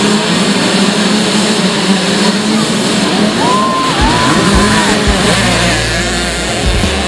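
A pack of small two-stroke youth dirt bikes running together at the start line, then revving hard as the pack launches and pulls away about four seconds in.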